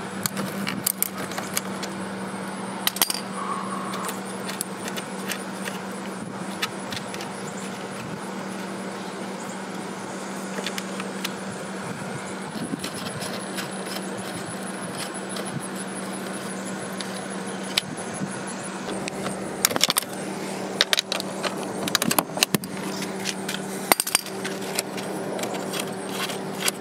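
Ratchet wrench clicking and metal clinks from battery terminal nuts and cable lugs being loosened and lifted off the posts of lead-acid Interstate SRM-24 marine deep-cycle batteries, in scattered clicks that come thickest near the end. A steady low hum runs underneath.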